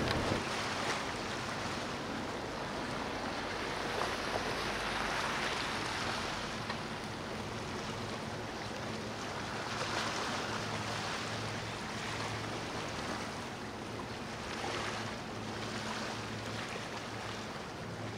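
Boat-wake water washing and splashing in swells that rise and fall every couple of seconds, over a steady low boat-engine hum.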